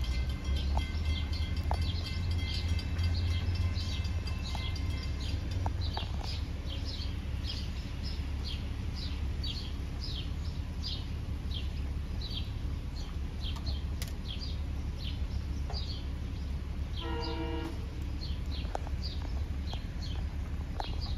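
An approaching SEPTA commuter train sounds a short horn chord about three quarters of the way through, over a steady low rumble. A bird repeats a short falling chirp about twice a second before the horn.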